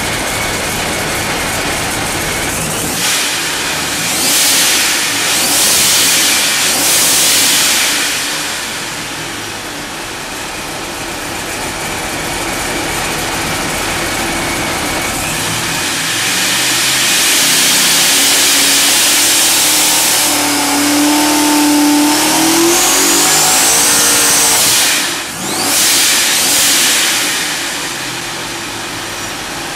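ProCharger-supercharged 434 cubic-inch Chevy V8 running hard and revving in surges. A rising whine comes in about three-quarters of the way through, and the engine note drops out briefly just before the last surge.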